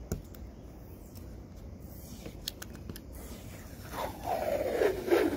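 A paper lot-number sticker being picked at with a fingernail and peeled off car glass: a few small scratchy clicks, then from about four seconds in a louder, drawn-out crackling peel as the adhesive lets go.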